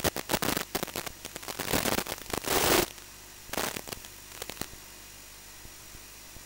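Crackling static bursts on the audio of an analog FPV video feed from a Walkera F210 racing drone, over a steady faint hum. The crackle is dense for about the first three seconds, then comes back in two shorter bursts.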